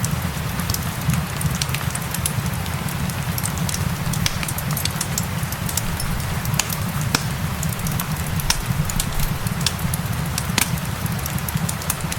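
Fireplace crackling, with many sharp pops and snaps scattered through a steady low rumble, mixed with the even hiss of steady rain.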